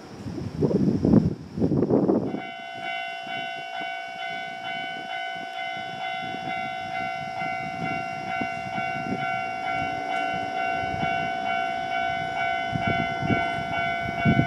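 Nankai commuter train running on the track with rumble and wheel clatter, two loud rumbles in the first two seconds; then, about two seconds in, a railway level-crossing warning bell starts ringing steadily at one pitch and keeps ringing.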